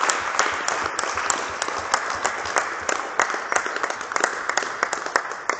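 A group of people applauding, with individual hand claps standing out. The clapping dies down near the end.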